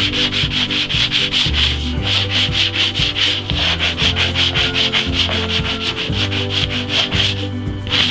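Hand sanding block rubbed rapidly back and forth over a fused plastic-bag patch on a polyethylene canoe hull, about four strokes a second, to smooth the repair flush with the hull.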